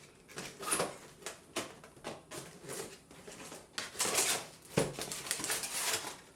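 Cardboard box being opened by hand: a run of scrapes, rips and rustles of cardboard, with a longer tearing stretch about four seconds in.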